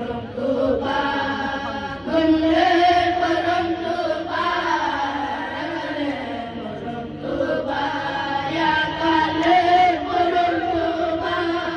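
A group of boys chanting a Sufi zikr in unison, amplified through microphones, in long held notes; a new phrase swells in about two seconds in and again past the middle.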